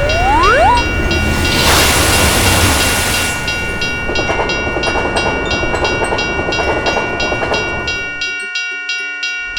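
Railroad crossing bell ringing in rapid, even strikes while a train rumbles and clatters past. The train noise cuts off about eight seconds in, leaving the bell ringing on its own.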